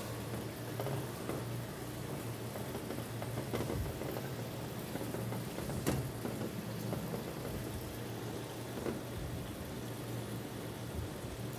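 Steady low hum with a faint hiss underneath, and a few soft taps and rustles of hands rolling an egg roll wrapper on a ceramic plate, with one sharper tap about six seconds in.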